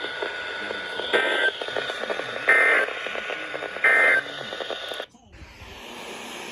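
Three short bursts of Emergency Alert System digital data tones, about a second and a half apart, over radio hiss from a weather-radio receiver: the end-of-message code that closes the alert. A little after that the radio audio cuts out abruptly, and a quieter hiss follows.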